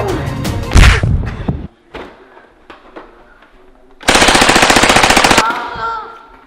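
A loud burst of rapid machine-gun fire lasting about a second and a half, with a faint tail after it. It comes after the soundtrack music closes on a heavy hit and drops away.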